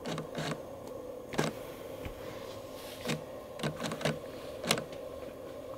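Short, sharp handling clicks and taps, about eight of them at uneven intervals, over a faint steady hum.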